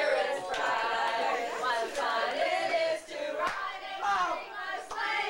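A group of voices singing together without instruments, some notes held and others sliding.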